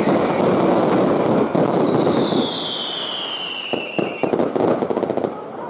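Fireworks display: dense crackling from glittering crackle stars, with a whistle falling steadily in pitch over about two and a half seconds. A string of sharp cracks follows near the end as the crackling dies down.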